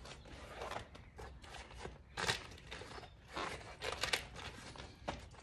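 27.5-inch knobby fat-bike tire being worked onto its rim by hand, the rubber bead rubbing and scuffing against the rim in short, irregular bursts, the loudest about two and four seconds in.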